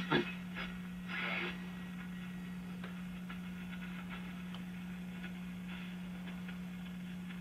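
Shortwave static from the speaker of a 1939 Fada Model 169 tube radio as it is tuned between stations: faint hiss with scattered crackles over a steady low hum, and a brief louder patch of noise about a second in.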